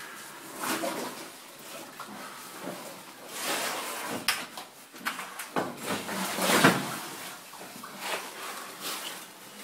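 Close rustling and knocking of cave-diving gear being handled right at the microphone, irregular and uneven, with a louder rush of noise about two-thirds of the way through.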